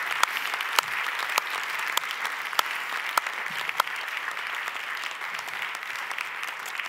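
A large audience applauding: dense clapping with one nearby clapper standing out in a steady beat of sharp claps, a little under two a second. The applause eases off slightly toward the end.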